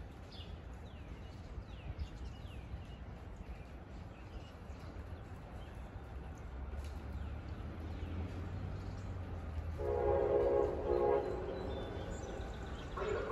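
Train horn sounding one long blast about ten seconds in, over a low rumble that builds beforehand; another blast begins at the very end. Birds chirp faintly in the first seconds.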